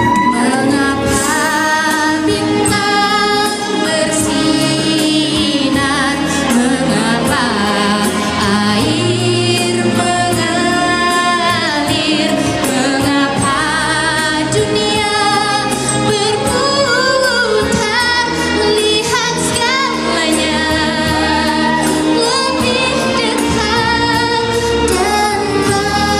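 A woman singing a pop song solo into a microphone over a recorded backing track, heard through the stage's PA speakers.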